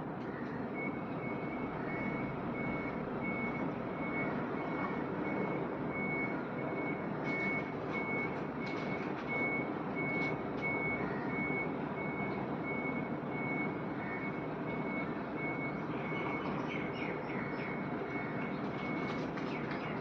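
A vehicle's reversing alarm beeping a single high tone at an even pace, about three beeps every two seconds, over a steady background rush. It stops about a second before the end.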